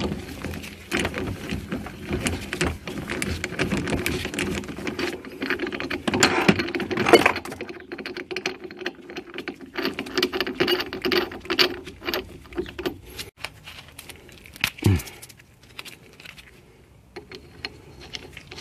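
Metallic clicking and clinking of a ratchet wrench and a -6AN fitting being worked on an H22 thermostat housing held in a bench vise. The clicking is dense at first and thins out after about 13 seconds, with a single knock about 15 seconds in.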